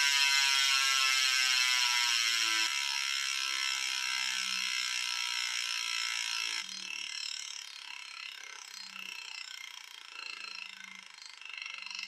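DT Swiss 180 rear hub freehub buzzing as the wheel coasts, picked up by a mic clipped to the rear derailleur housing, so the ratchet comes through together with bearing and wheel vibration. The buzz falls in pitch and fades as the wheel slows, dropping in level in two steps, about three and seven seconds in.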